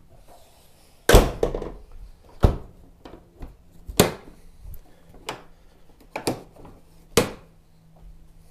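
A series of six hard knocks and thuds about a second or so apart. The first is the loudest and is followed by a short rattle.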